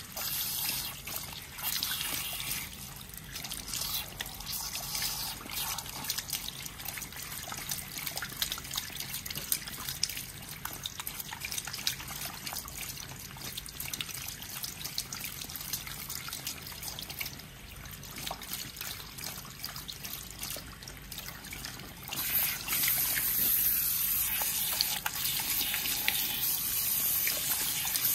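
Salon shower head spraying water through wet hair at a shampoo basin, with the water trickling and splashing into the sink. The spray turns louder and hissier about three quarters of the way through.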